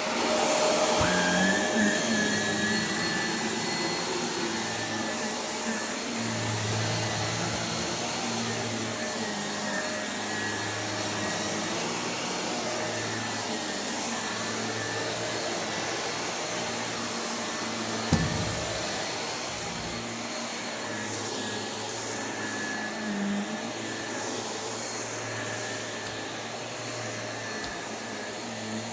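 Vacuum cleaner running steadily with an even motor whine, and a single sharp knock about 18 seconds in.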